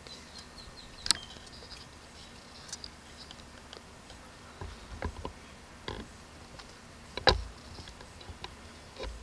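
Faint, thin twittering of lesser goldfinches in short high notes during the first couple of seconds, with several sharp clicks and dull knocks scattered through, the loudest about seven seconds in.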